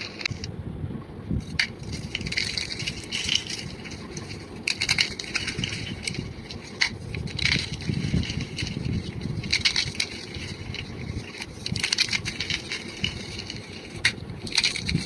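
Blocks of gym chalk being crushed and crumbled, with irregular sharp cracks a second or two apart over a steady low crunching.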